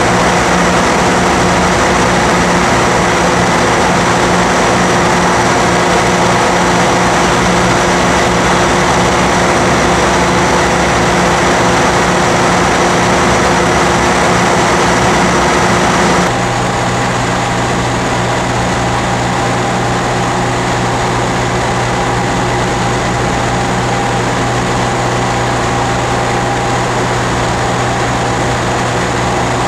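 The OctaKong vibratory pile driver, a giant rig of linked vibratory hammers with hydraulic drive, running as a loud, steady mechanical drone with several fixed pitches. About 16 seconds in the drone changes suddenly to a slightly quieter one with a different pitch.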